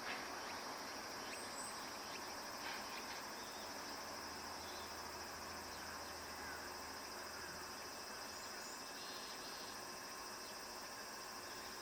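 Steady high-pitched trilling of insects in a summer garden, with a few faint, brief bird chirps over it.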